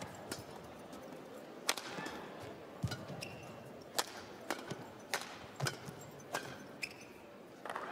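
Badminton rally: racket strings striking the shuttlecock in a quick series of sharp cracks, with brief shoe squeaks on the court floor between shots.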